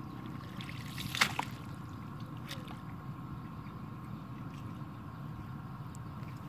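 Lake water sloshing and dripping as a nylon cast net is hauled up and gathered by hand by a man wading waist-deep, with one sharper splash about a second in.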